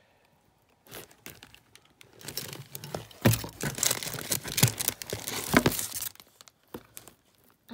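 Packaging crinkling and rustling as hands rummage in a cardboard shipping box, with scattered sharp crackles. It builds up after about a second, is loudest through the middle and dies away near the end.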